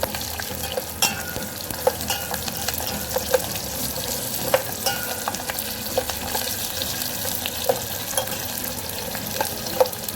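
Garlic, cumin and chillies sizzling in hot oil in a pan as they are sautéed, with frequent short scrapes and taps of the stirring spatula against the pan.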